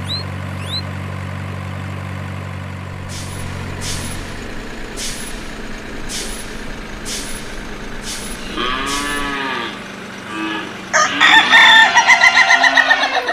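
Truck sounds for a line of toy animal-transport trucks: a steady engine hum that fades out about four seconds in, with short hissing clicks about twice a second. Then a single drawn-out animal call near nine seconds, and a chicken clucking loudly and rapidly near the end.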